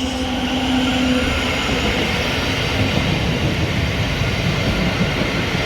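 Thameslink Class 700 electric multiple unit running through the platform: a loud, steady rumble of wheels on rails, with a steady low tone for about the first second and a half.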